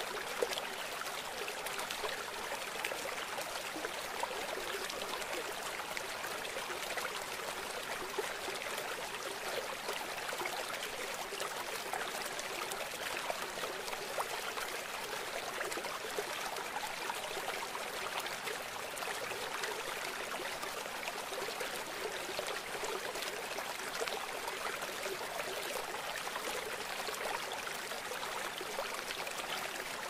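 Shallow river running fast over flat rock shelves and small rapids: a steady, even rush of flowing water.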